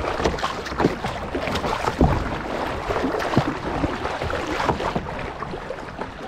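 River water splashing and gurgling around a moving kayak, with irregular short splashes and knocks. The sharpest comes about two seconds in.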